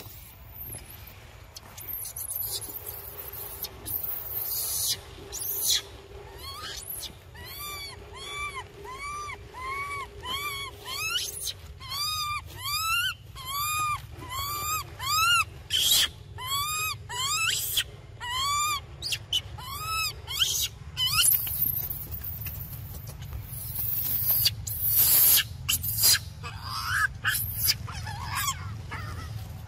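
Baby macaque crying: a long run of short, high, arching calls, about one and a half a second, with harsher noisy screeches before and after. An infant crying to nurse.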